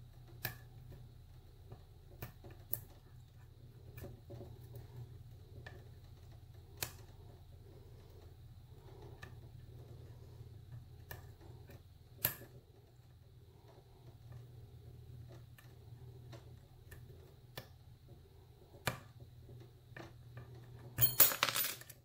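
Scattered small metallic clicks and ticks of a lock pick and tension wrench working inside a vintage pin-tumbler padlock's keyway, over a faint steady hum. Near the end, a louder short clatter as the tension wrench slips out of the keyway and drops onto the desk.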